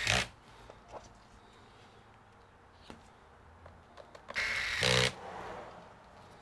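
Corded electric screwdriver whirring in two short runs, one right at the start and one of under a second about four and a half seconds in, driving the laptop's bottom-cover screws back in. A few faint clicks come between the runs.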